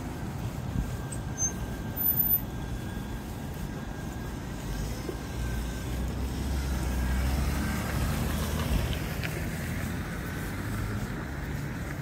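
City street traffic: a passing vehicle's low rumble swells about halfway through and then fades, with a couple of brief knocks about two seconds in.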